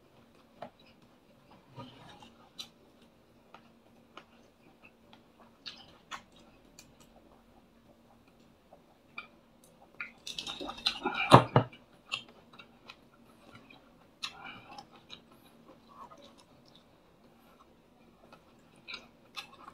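Eating sounds: scattered soft chewing, lip smacks and clicks of fingers picking at food on a plate, with a louder run of drinking gulps from a mug about ten seconds in. A faint steady hum runs underneath.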